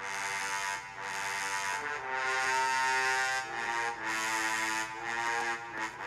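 Software brass ensemble, a built-in Logic 9 instrument, playing back a slow melody of held notes in short phrases with brief breaks between them.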